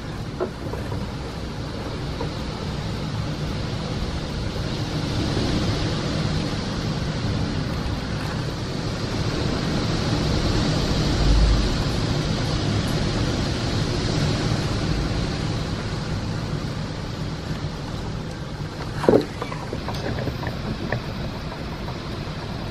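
Hurricane-force wind gusting through trees: a steady rushing that swells and ebbs, strongest about halfway through. A single sharp knock comes late on.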